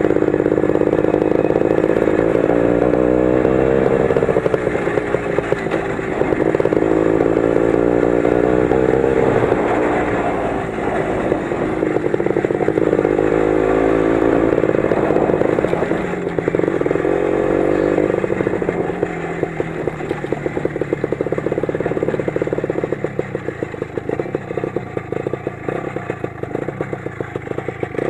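Lider 3.221 20 hp motorcycle's engine running under way over a rough track, its note rising and falling as it speeds up and eases off. In the last several seconds it runs slower and choppier.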